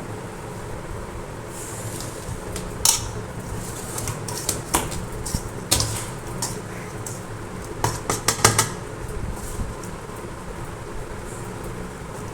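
Metal utensils clinking and scraping against a metal tray and kadai as ground spice powder is spread out to cool. There are scattered sharp clinks, with a quick run of several about eight seconds in, over a steady low hum.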